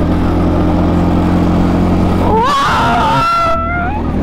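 Go-kart engine running steadily at speed, with a passenger's long high-pitched cry of excitement about halfway through that rises, wavers, then holds.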